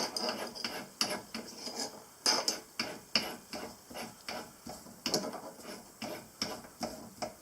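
A small vise being screwed in to clamp a part: irregular clicks and knocks from the screw handle and metal parts, a few a second, the loudest right at the start and a little over two seconds in.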